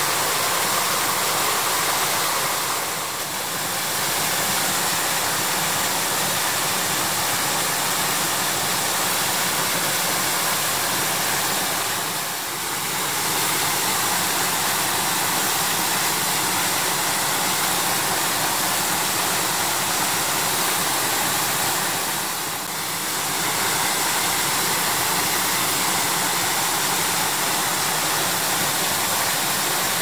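Steady rushing roar of a waterfall pouring down a steep rock face and splashing, dipping briefly three times.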